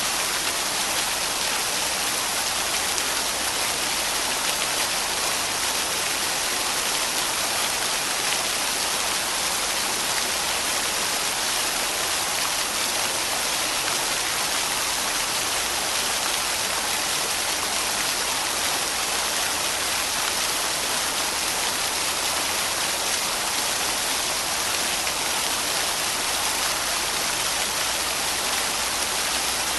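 Waterfall: a steady, unbroken rush of falling water, strongest in the hissing upper range, with no change in level.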